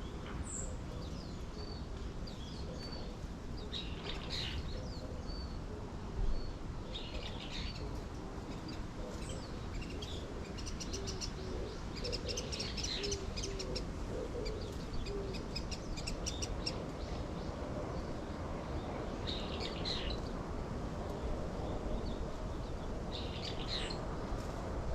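Several small birds chirping and trilling in short high phrases at intervals, with a run of short, lower calls partway through. All of it sits over a steady low background noise, with a single brief knock about six seconds in.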